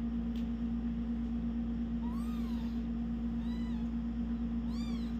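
Very young kittens mewing: three thin, high cries, each rising and falling in pitch, about a second apart, over a steady hum.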